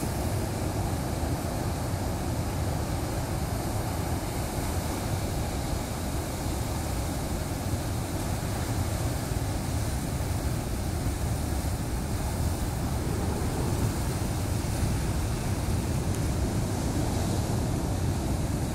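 Ocean surf breaking and washing over a rocky shoreline, a steady rushing hiss. Wind buffets the microphone throughout, giving a low rumble.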